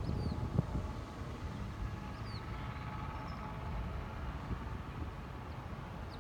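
Outdoor ambience: a steady low rumble with short, high chirps of small birds now and then.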